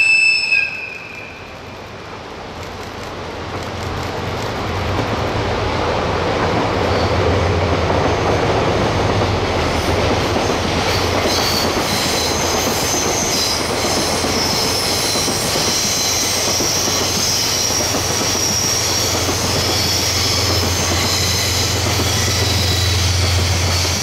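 A short horn toot right at the start, then a diesel train approaches and runs past for about twenty seconds. There is a steady low engine drone, rail noise, and high wheel squeal from about eleven seconds in.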